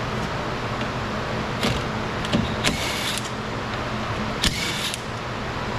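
Cordless driver with a T30 Torx bit loosening door bolts in a few short bursts of about half a second each, with a click or two between them, over a steady low hum.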